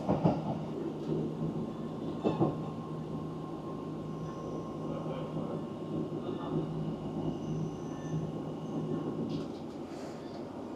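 Inside a Class 150 diesel multiple unit: a steady rumble and hum from the train, with a couple of light clicks.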